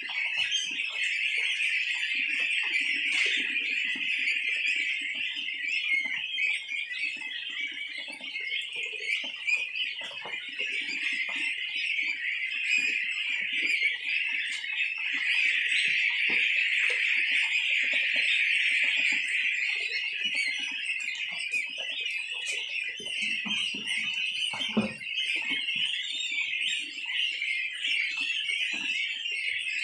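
A large flock of young goslings, about 18 days old, peeping continuously in a dense, high-pitched chorus. Scattered faint knocks sound under it, with one sharper thump near the end.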